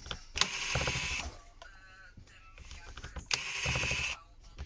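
Small electric screwdriver running in two short bursts of about a second each, unscrewing the screws that hold a phone's inner cover.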